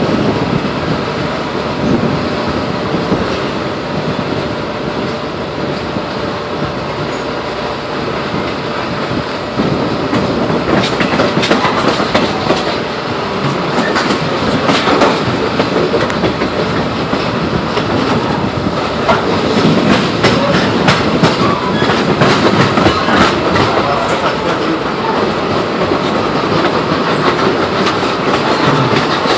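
Steam-hauled passenger train running at speed, heard from an open coach vestibule: a steady rumble of wheels on rail that grows louder about ten seconds in, with a rapid run of clicks and clatter as the wheels cross rail joints and switches through the middle.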